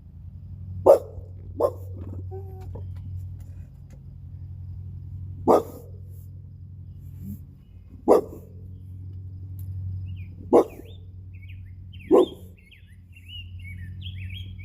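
An American Bully barking single, deep barks several seconds apart, six in all, reacting to a bird. From about two-thirds of the way in, faint bird chirping is heard between the barks, over a steady low hum.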